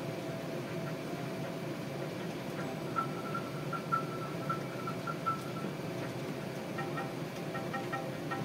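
Steady low rumble of Airbus A380 cabin noise while taxiing, with faint high tones coming and going from about three seconds in.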